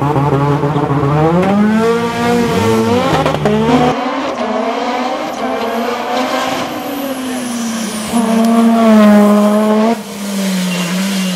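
Supercharged Honda K24 four-cylinder engine of a lightweight Lotus Exige race car revving hard, with some tyre squeal as it spins its rear tyres. It then accelerates flat out, the engine's pitch repeatedly rising and dropping back as it shifts up through the gears.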